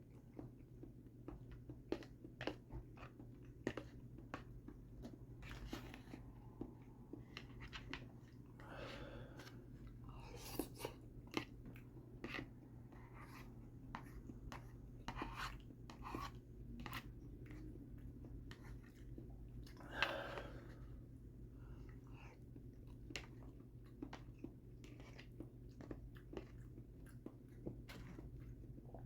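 A person chewing soft linguine in creamy Alfredo sauce close to the microphone, faint wet mouth clicks and smacks at an irregular pace, with one louder brief mouth sound about twenty seconds in.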